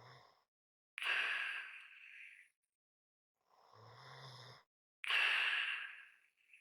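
A person breathing slowly and heavily, almost snoring. Two breath cycles: each is a softer breath with a low buzz in the throat, then a louder breath that starts abruptly and carries a light whistle.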